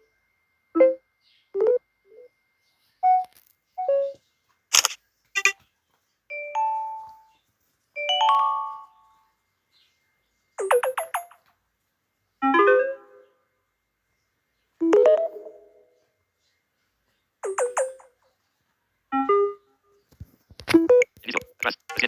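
Smartphone system UI sounds played one after another: about a dozen short beeps, chimes and clicks, each separated by a gap of silence.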